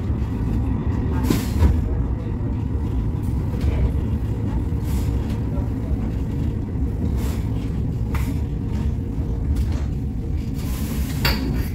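Cab-interior sound of a Cologne Stadtbahn light-rail car running at street level: a steady low rumble of wheels and motors, with a few sharp clicks and a short hiss near the end as it reaches a stop.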